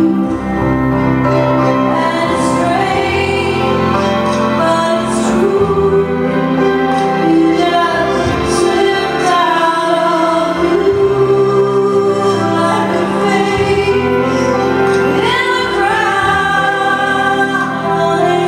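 A slow song with a singing voice and long, held notes, played for a nightclub two-step dance.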